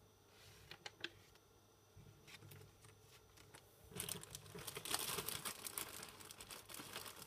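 Paper and art materials being handled on a table: a few light clicks and taps, then from about four seconds in a busier crinkling, scratchy rustle.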